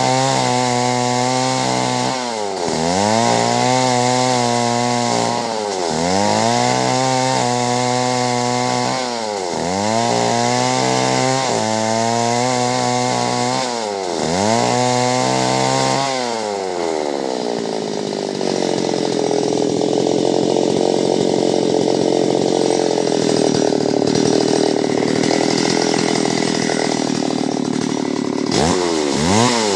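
Chainsaw cutting clove wood. For the first half its engine speed dips and climbs back about every two to three seconds as the bar is worked in the cut. Then it drops and holds at a lower, steady pitch under continuous load, and the dipping pattern returns near the end.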